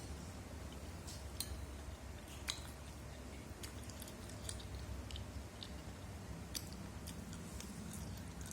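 Chewing of pempek fish cakes, with many small, irregular mouth clicks.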